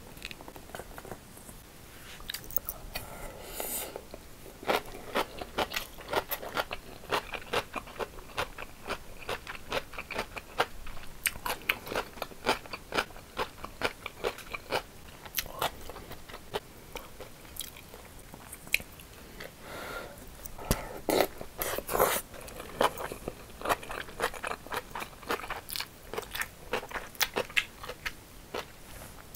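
Close-up chewing and crunching of a mouthful of rice mixed with seasoned cucumber, the crisp cucumber slices crunching between the teeth in many quick, irregular bites and chews.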